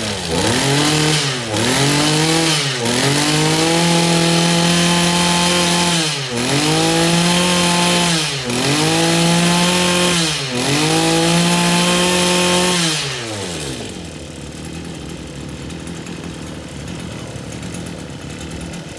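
Tanaka 25 cc petrol brush cutter (34 mm bore) revved repeatedly by its throttle trigger: the engine note climbs quickly, holds at high revs for a couple of seconds, drops briefly and climbs again about five times, showing a quick, responsive throttle. About two-thirds of the way through it falls back to a quieter idle.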